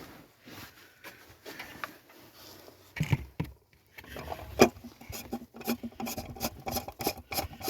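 Oil filter housing cap being fitted and threaded on by hand: rubbing and scraping, two sharp knocks about three and four and a half seconds in, then a run of short clicks.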